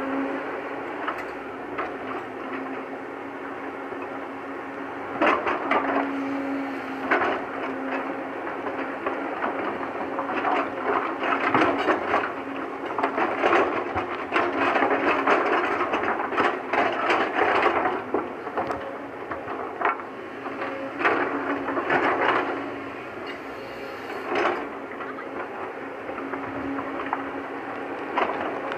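JCB tracked excavator's diesel engine running steadily while the bucket scrapes and rakes through loose rock and soil. Rocks clatter in repeated bursts, most densely through the middle.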